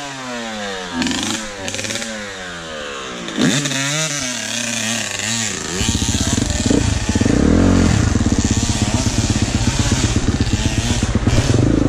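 Dirt bike engines revving. In the first half the pitch swoops up and down with the throttle; from about six seconds a closer, louder engine runs steadily, rising and falling once as the bike rolls down the bank into the creek.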